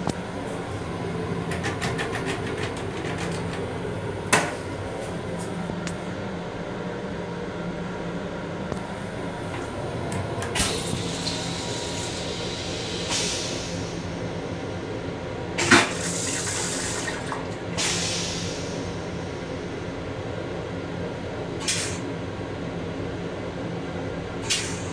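Stainless-steel toilet on a Long Island Rail Road M7 railcar flushing: rinse water hisses and gushes around the bowl in several separate spurts from about ten seconds in, the loudest around the middle. A steady low hum of the railcar runs underneath, with a sharp knock about four seconds in.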